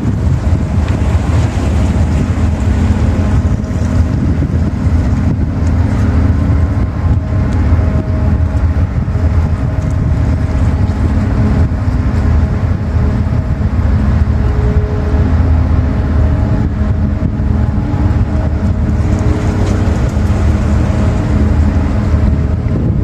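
Large COSCO Shipping container ship passing close by: a loud, steady low rumble of its engines and machinery, with several steady droning hums.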